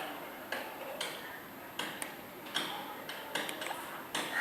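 Keypad buttons of a FORME S700 flip phone being pressed: a string of short, irregularly spaced clicks as menus are stepped through.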